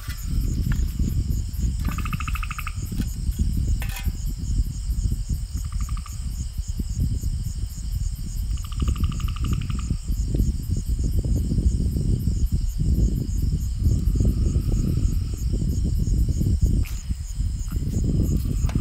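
Night insects trilling steadily, with short pulsed cricket buzzes several times, over a loud, uneven low rumble.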